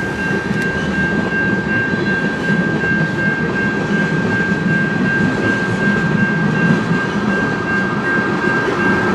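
Freight train cars rolling past slowly, a steady, even noise of wheels on rail with a thin constant high tone running through it.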